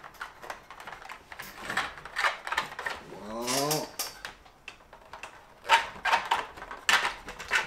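A carbon-fibre rod being pushed and worked through 3D-printed plastic wing sections: a run of irregular clicks, taps and scrapes of rod and plastic parts, with a short rising squeak-like tone about three and a half seconds in.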